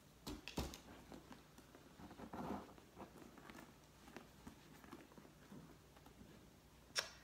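Faint rustling and handling of a Louis Vuitton NéoNoé monogram canvas bucket bag as hands rummage inside it. There are scattered light clicks and taps, with a sharper click near the end.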